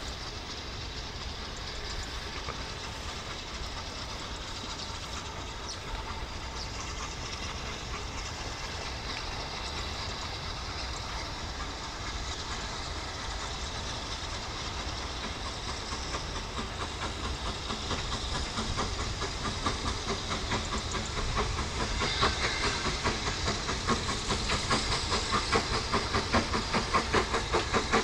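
BR Standard Class 9F 2-10-0 steam locomotive 92214 approaching, a constant hiss of steam with its exhaust beats growing steadily louder and more distinct in the second half, about three a second near the end.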